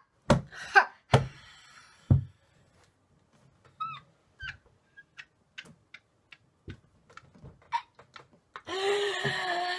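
A boy's cringing vocal noises, with no words. There are three thumps in the first two seconds and short high squeaks around the middle. Near the end comes a loud, long drawn-out "eeeh" whine.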